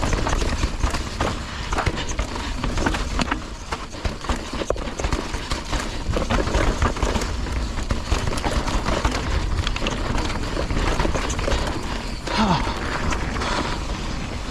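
Mountain bike rattling and clattering over a rough dirt trail at speed, with tyre noise and quick knocks from the frame and chain, over a constant heavy wind rumble on the action camera's microphone.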